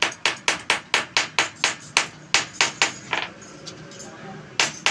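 Hand hammer striking a small piece of galvanized sheet metal on a concrete floor, flattening it into a shim for a loose brake-drum bearing seat. The blows are quick, light and metallic, about four a second, then stop for over a second, and two more strikes come near the end.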